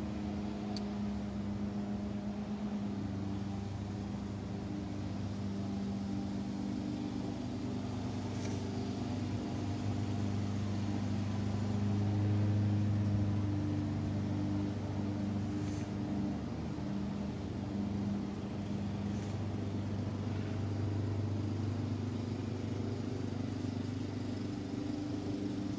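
A steady low machine hum with several pitched tones that drift slightly, swelling a little about twelve seconds in, with a few faint clicks.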